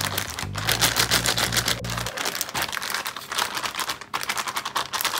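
Thin plastic zip-top bag crinkling and rustling in quick, irregular crackles as hands knead sliced cucumbers and herbs in soy-based pickling liquid inside it, working the seasoning in.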